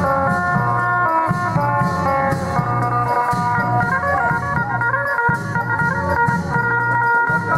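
Mor lam music played over horn loudspeakers: a fast plucked-string melody over a steady bass beat.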